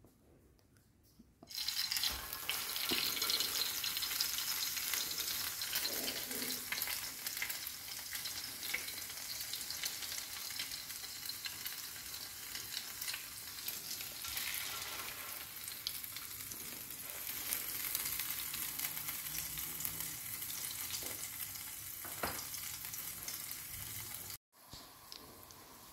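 Egg-soaked bread slices sizzling in hot oil on a flat griddle, a steady crackling hiss that starts suddenly about a second and a half in and cuts off near the end.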